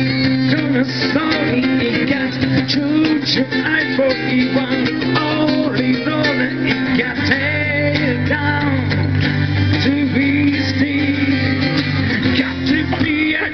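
Live band music led by strummed acoustic guitars over a steady bass line, with the low notes moving to a new chord about halfway through.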